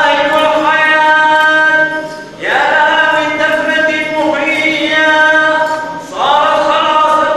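Unaccompanied liturgical chant of a Syriac Catholic Good Friday service. The voices hold long notes, each phrase sliding up into its first note, with short pauses about two seconds and six seconds in.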